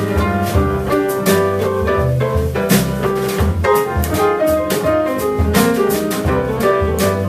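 Jazz quartet instrumental passage of piano, double bass and drum kit, with no vocals. The bass moves in steady low notes under piano chords while cymbals ring out on the beat.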